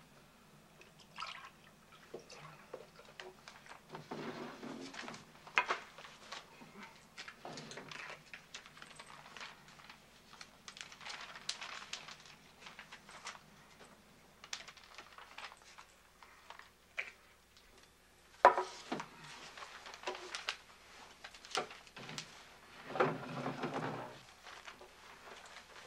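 Breakfast-table sounds: spoons, cups and glasses clicking and clinking against dishes and the table, liquid being poured, and newspaper pages rustling, with a longer rustle near the end.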